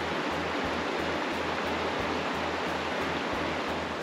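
Steady rush of river current flowing over a riffle.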